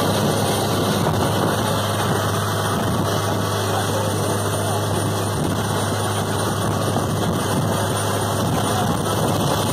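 Longtail boat engine running steadily at speed, a constant low hum with a rush of wind and water.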